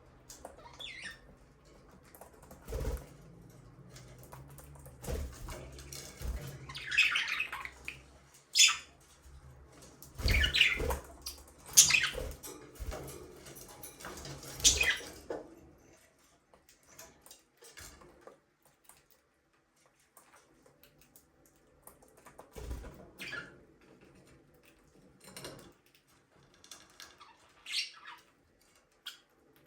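Pet budgerigars chirping in short, quick bursts, with a few low thumps among them. The chirping is busiest in the first half, dies away for several seconds, then comes back more sparsely near the end.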